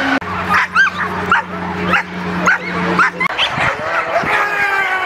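Dogs barking and yipping in short, high, arching yelps, about two a second, with a steady low hum underneath that stops about three seconds in.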